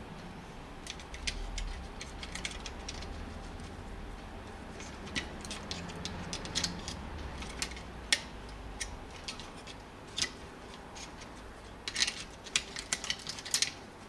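Small clicks and taps of a hand tool and fingers working on a disassembled hair dryer's plastic housing and wiring. They come scattered, with a quick run of sharper clicks near the end, over a low steady hum.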